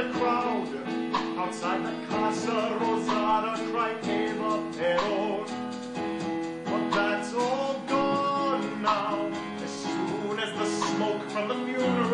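A live stage-musical number: strummed acoustic guitar accompaniment with voices singing over it.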